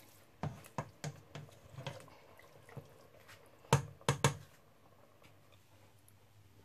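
Black spatula knocking against the sides of a stainless steel stockpot as beef chunks are stirred in broth: a run of light knocks, then two sharper knocks about half a second apart a little before the middle, after which the stirring stops.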